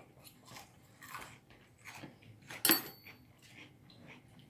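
Cutlery scraping on plates during a meal, with one sharp ringing clink of metal on china about two and a half seconds in.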